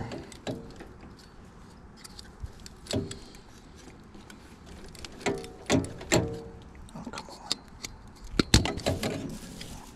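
Scattered metallic clicks and clatter of hand tools and electrical wiring being handled, with a few sharper snaps in the second half, the loudest about eight and a half seconds in.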